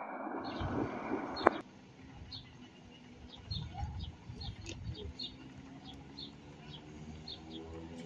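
A loud rush of noise cuts off with a sharp click about a second and a half in. Then small birds chirp over and over above the low rumble of a Renfe Media Distancia passenger train easing into the platform, with a few steady tones joining near the end.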